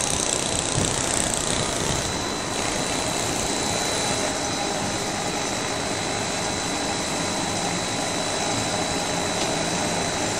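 Stone-cutting quarry chain saw machine, driven by an electric motor on a rack rail, running steadily while cutting stone: a continuous mechanical noise with a thin, high, steady whine.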